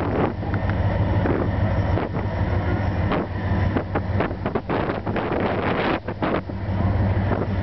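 Diesel locomotive engine idling with a steady low hum, standing at the platform. Wind buffets the microphone in uneven gusts over it.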